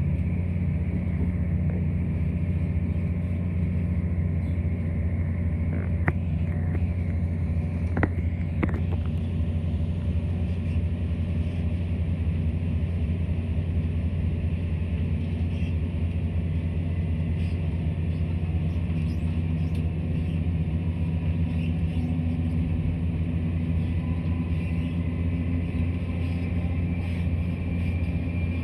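Class 170 Turbostar diesel multiple unit running at speed, heard inside the passenger cabin: a steady low drone of its underfloor diesel engine and wheels on the rails, with a few sharp clicks about six and eight seconds in.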